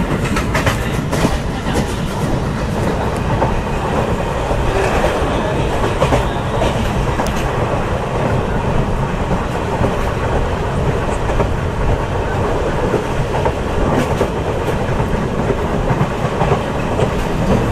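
Mumbai suburban electric local train running: a steady, dense rumble with scattered sharp knocks.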